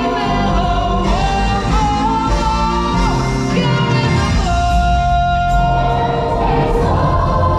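A song from a stage musical: voices singing over instrumental music, with long held and gliding notes.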